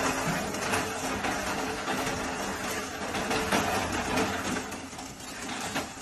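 Electric metal-rod straightening machine running, a steady motor hum at a constant pitch with scattered clicks and clatter of metal rod going through it.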